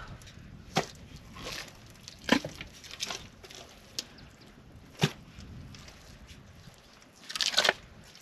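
Scattered sharp knocks and scrapes, about one every second or two, with a quick rattle of several clicks a little past seven seconds in.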